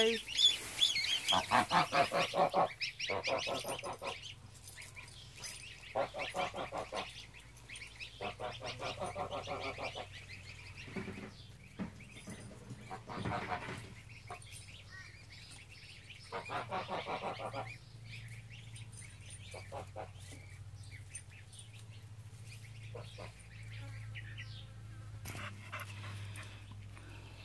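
Domestic geese and ducks calling: about five runs of quickly repeated calls, each a second or two long, the last about two-thirds of the way through, followed by only faint calls.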